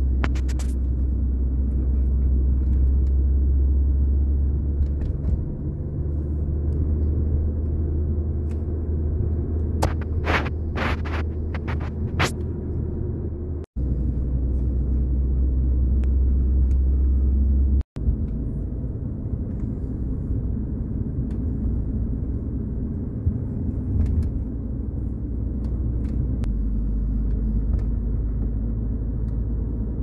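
Car engine and tyre noise heard from inside the cabin while driving: a steady low rumble. A short run of sharp clicks comes about ten seconds in, and the sound cuts out for an instant twice, a few seconds apart.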